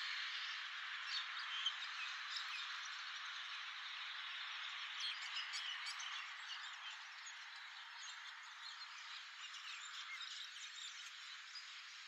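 Many small birds chirping and twittering at once, a dense chorus over a steady hiss.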